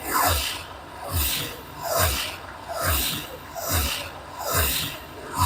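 Ultimate Fire Link Explosion slot machine playing its electronic bonus sounds. A whooshing pulse with a low thud and a falling tone repeats steadily, a little more than once a second.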